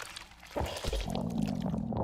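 Wet swallowing and gurgling sound effects: a low gulp about half a second in, then a steady wet gurgle with small clicks.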